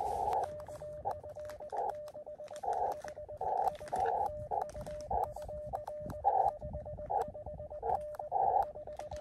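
Morse code (CW) tones around 600 Hz from an Elecraft KX2 QRP transceiver, keyed on and off in an irregular dit-dah rhythm. Bursts of band hiss come through the radio's narrow CW filter, along with scattered clicks.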